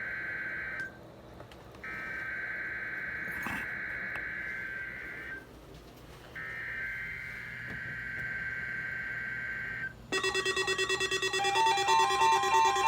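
Emergency Alert System SAME header: three bursts of shrill digital data tones, separated by about a second of pause, encoding the alert message. About ten seconds in, a louder pulsing alert tone starts.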